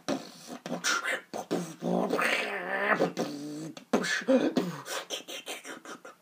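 Dubstep-style beatboxing: rapid percussive mouth clicks and snare-like hits, broken from about two seconds in to about four seconds by a held, wavering bass tone from the throat imitating a dubstep wobble, then more quick percussive hits.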